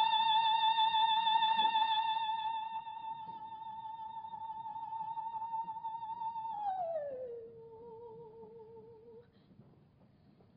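A soprano holds a long high note with vibrato that slowly fades. Then she slides down an octave and holds the lower note briefly before it dies away.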